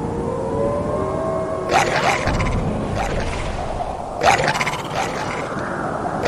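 Strong gusty wind howling: a steady low rumble with thin whistling tones that slowly rise in pitch. Twice, just under two seconds in and again past four seconds, something clatters and rattles loudly in the gusts.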